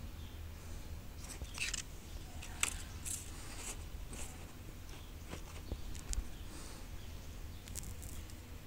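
Paper and packaging being handled: scattered crinkles, rustles and small clicks from the folded paper leaflet of an iPod shuffle, busiest in the first half.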